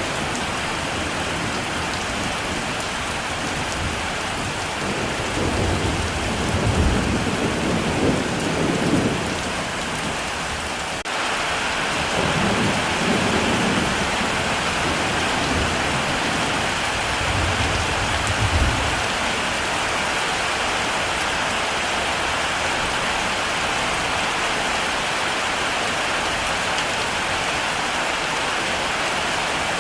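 Heavy rain pouring steadily, with thunder rumbling low twice in the first part, then only the rain.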